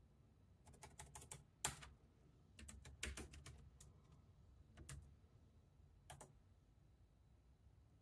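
Faint typing on a computer keyboard: short runs of key clicks as terminal commands are entered, with one sharper keystroke about a second and a half in and the last few presses about six seconds in.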